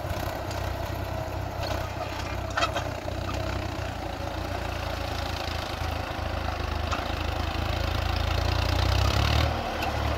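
Swaraj 963 FE tractor's three-cylinder diesel engine running under load as it pulls a plough through dry soil, a steady low rumble that grows louder over the last few seconds as the tractor comes closer. There is one short sharp clack about two and a half seconds in.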